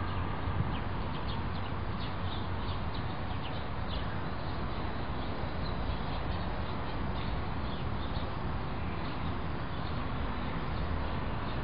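Outdoor ambience: a steady low background rumble, with small birds giving short, high chirps, most of them in the first few seconds.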